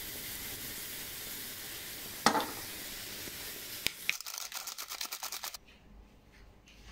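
Sliced mushrooms sizzling in a frying pan with a steady hiss as soy sauce goes in, with two sharp clicks. About four seconds in, a quick run of rapid scraping as the mushrooms are stirred with a spoon.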